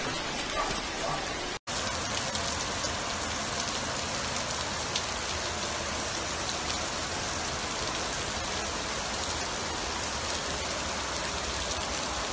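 Steady hiss of heavy rain and running floodwater in a flooded street, broken once by a brief dropout about a second and a half in.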